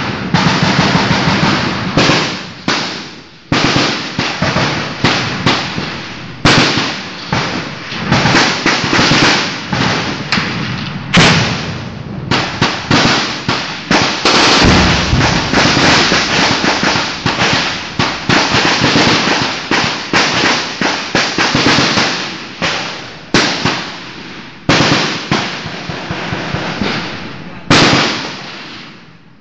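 Heavy, sustained small-arms gunfire: shots and rapid bursts overlapping almost without a pause, each crack trailing off in an echo. The firing stops near the end.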